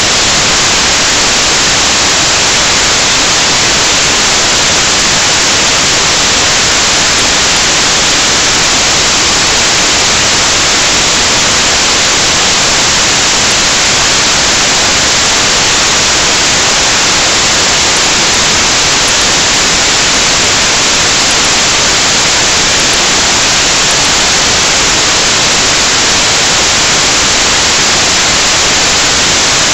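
Loud, steady static hiss replacing the recording's audio: a sound-capture fault in which the audio dropped out and left only noise.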